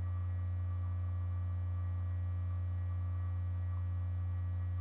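Steady low electrical hum with nothing else clearly heard.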